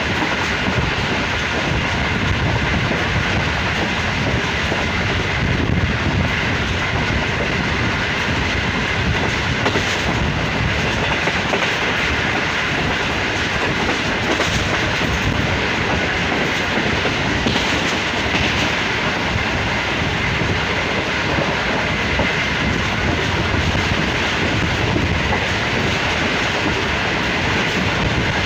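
Passenger train coaches running at speed: a steady rumble of steel wheels on the rails, with clatter over the track.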